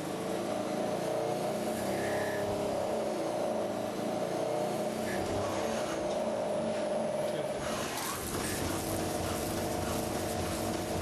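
Lathe running with a steady motor hum; about eight seconds in, a rougher, hissing noise joins it.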